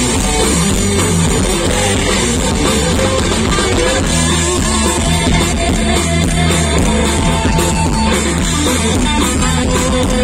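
Live rock band playing: distorted electric guitar, bass and drum kit, loud and steady.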